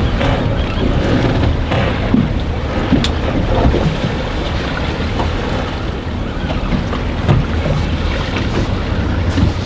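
Strong wind of about 20 knots buffeting the microphone in a steady low rumble, over water washing against a small boat, with an occasional sharp click about three seconds in.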